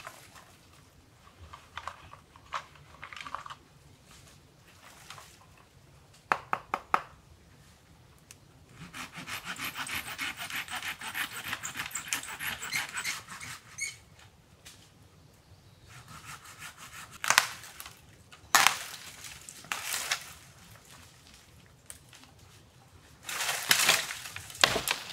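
Dry dead branches being broken and pulled out of the undergrowth by hand. There are sharp snaps of dry wood, a stretch of rapid crackling and rubbing about nine seconds in that lasts some five seconds, and then several single loud cracks with a burst of cracking near the end.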